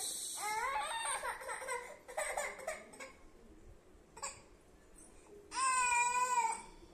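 A toddler's high-pitched babbling and vocal sounds in the first few seconds, then one long, high cry of about a second near the end.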